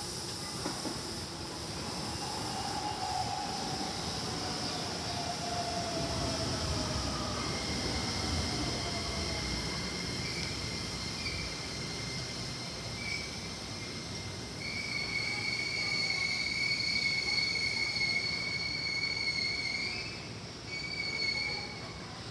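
Electric commuter train moving through the station: a motor whine falls in pitch early on, then the wheels squeal with steady high tones from about a third of the way in, loudest near the end, over the rumble of the cars.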